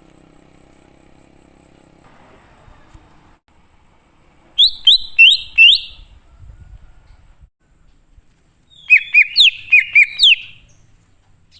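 Cucak ijo (green leafbird) singing: two loud phrases of sharp, downward-slurred whistled notes, four notes about halfway in and a quicker run of about seven near the end.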